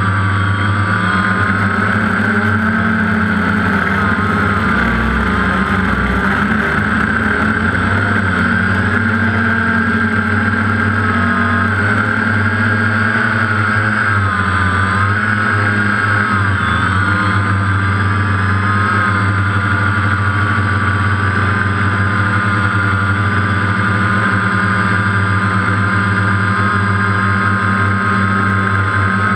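DJI Phantom quadcopter's electric motors and propellers running in flight, heard close up from the camera it carries. It is a steady whine of several tones that waver slightly in pitch as the drone adjusts its motors.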